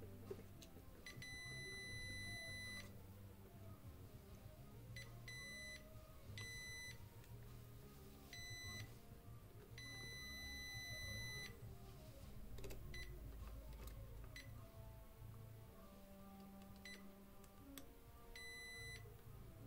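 An electronic beeper sounding a steady high beep about seven times at irregular intervals: most beeps are short, and two are held for a second or more. Soft music plays faintly underneath.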